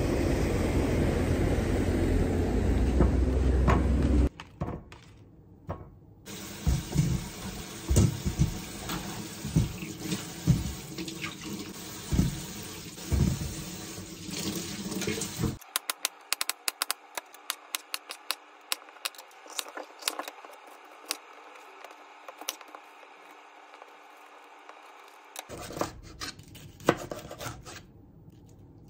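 A loud low rumble for about the first four seconds, then a kitchen tap running into a sink with knocks as vegetables are rinsed. From about halfway, a chef's knife chops bell peppers on a cutting board in many quick sharp taps.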